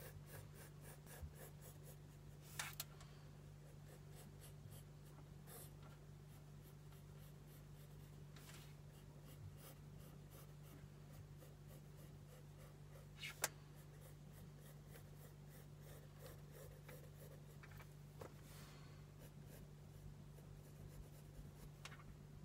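Pencil drawing on sketchbook paper: faint, scratchy strokes come and go, with two sharper clicks, one a few seconds in and one about halfway. A low steady hum sits underneath.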